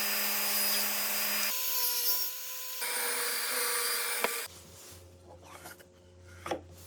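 A power tool working wood: a steady motor whine under a dense hiss of wood. It comes in short clips joined with abrupt changes. After about four seconds it drops away to a low hum with a few light knocks.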